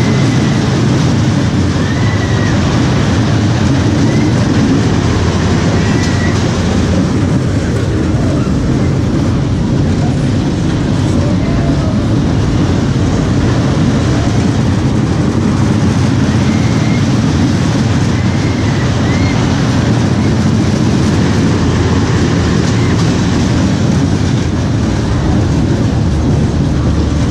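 Train of a small family roller coaster running on its steel track, heard from aboard: a steady low rumble of the wheels.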